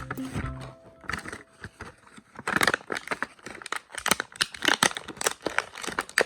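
Toy packaging being opened by hand: plastic and cardboard crinkling and tearing in quick, crackly bursts, starting after the background music fades out about two seconds in.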